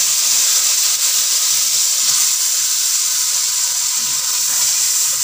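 Wet blended tomato, garlic and onion paste sizzling loudly in hot oil, a steady hiss as the masala fries.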